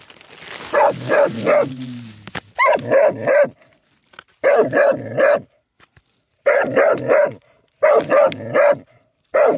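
Treeing Walker coonhound barking at a raccoon it has treed in a hollow stump, in rapid runs of four or five barks with short pauses between.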